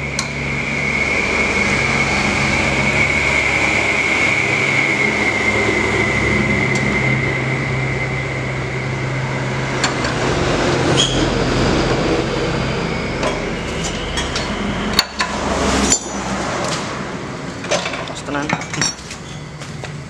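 Metal wrench and bolts clinking and clicking against a Honda GX160 engine as it is taken apart, with many sharp clinks from about halfway in. Over the first half runs a steady high-pitched whine with a low hum, which fades out.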